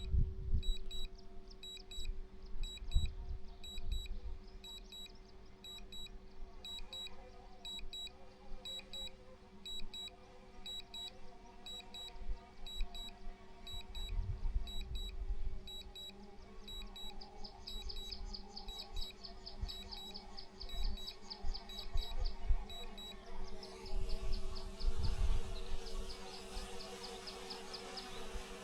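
Small camera drone hovering and flying back in, its propellers giving a steady buzzing hum, with a high beep repeating about one and a half times a second. About three-quarters of the way through the beeping stops and the buzz grows louder and hissier as the drone comes closer. Wind gusts rumble on the microphone.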